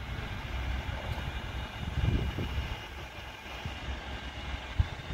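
A low, steady mechanical rumble, swelling briefly about two seconds in, with one short knock near the end.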